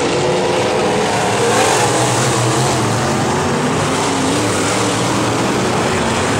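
A pack of dirt-track modified race cars running at speed around the oval, a steady loud engine drone with several engine notes rising and falling as the cars pass.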